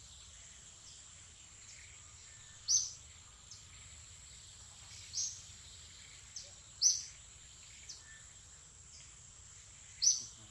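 Natural outdoor ambience: a steady high-pitched insect drone, with four short sharp chirps a few seconds apart standing out above it and a few fainter ones between.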